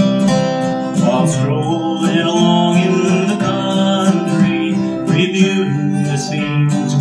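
Two acoustic guitars playing the instrumental intro to a country song: a lead guitar picking the melody over a strummed rhythm guitar.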